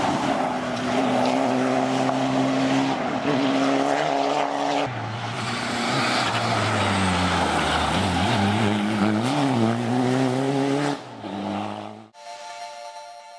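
Škoda Fabia RS TDI rally car's turbodiesel engine driven hard past the microphone, its revs rising and dropping with gear changes, in two passes with a cut about five seconds in. Near the end the engine cuts off and a few held electronic tones come in and fade.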